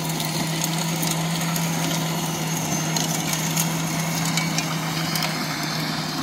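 Electric garden tiller running steadily, its motor giving an even hum as the tines work the soil, with a few faint ticks.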